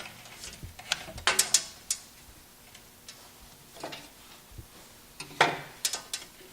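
Electrical wires being fed down into a control box: scattered clicks and scraping rustles in a few short clusters, about a second in, near four seconds and again between five and six seconds.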